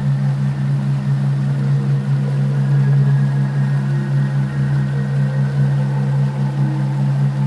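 A steady, loud low drone with a fast, even pulse in it, and faint higher tones drifting above.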